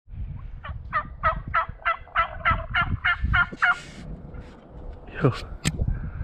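Turkey call yelping a fast run of about a dozen loud hen yelps, each note falling in pitch, with a turkey answering the calling.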